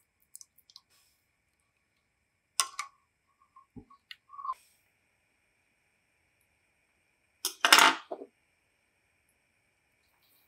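Spatula and utensils working in a saucepan: a few sharp clicks and knocks, then a louder scrape lasting under a second about three-quarters of the way through.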